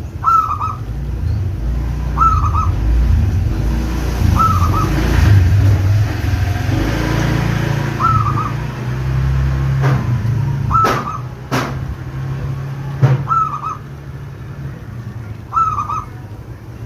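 Zebra dove (perkutut) cooing: a short call phrase repeated about every two seconds, seven times. Underneath runs a steady low rumble, and a few sharp clicks fall in the second half.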